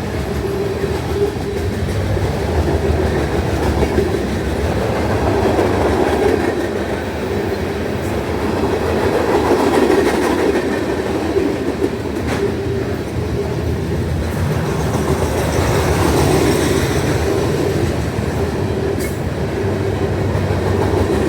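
A Norfolk Southern manifest freight train rolling past: steady loud rumble of wheels on rail with clickety-clack over the joints, swelling and easing as the cars go by, with a few sharp clanks.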